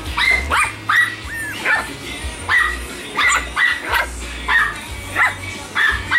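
Bichon Frise puppies yapping: a dozen or so short, high-pitched yips and barks, about two a second.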